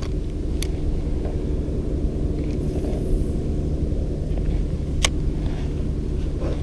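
Electric bow-mount trolling motor on a fishing boat running steadily with a low, even hum. A single sharp click comes about five seconds in.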